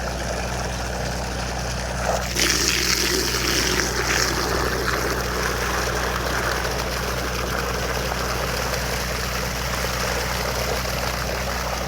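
Water from a hose running and splashing into a bucket, louder from about two seconds in, over a steady low engine hum.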